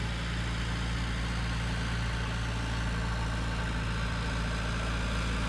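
Aircraft tow tractor's engine running steadily while pulling an aircraft, a constant low-pitched drone with no change in speed.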